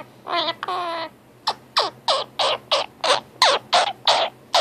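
Indian ringneck parakeet vocalizing: two longer pitched calls in the first second, then a rapid run of short, falling squawks, about three a second.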